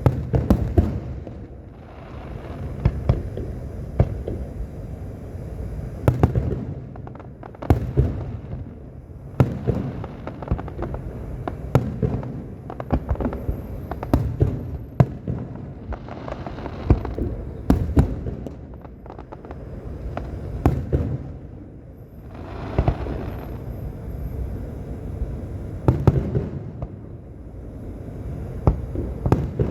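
Fireworks display: a rapid string of sharp bangs and crackles over low rumbling booms, swelling and easing every few seconds.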